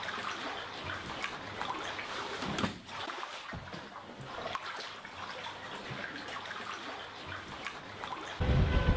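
Floodwater sloshing and trickling as a broom pushes it across a flooded shop floor. Near the end, wind buffeting the microphone cuts in loudly.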